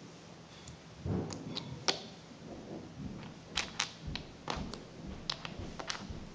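Small plastic toys being handled and set down on a wooden floor: a string of light clicks and taps, a few in the first couple of seconds and more, some sharper, in the second half.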